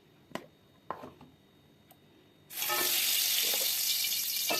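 Two light knocks, then about two and a half seconds in a loud, steady sizzle starts: ground spice paste frying in a little hot oil in a pan.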